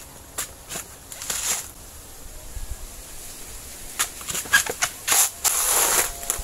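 Whole coconuts being handled and set down on a pile: scattered knocks and short rustling scrapes of the husks, busier in the second half.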